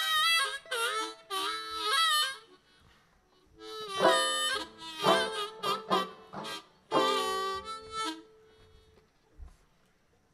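Harmonica played in short phrases of several notes at once: three quick phrases in the first two seconds, a pause, then three more from about four to eight seconds in, after which it stops.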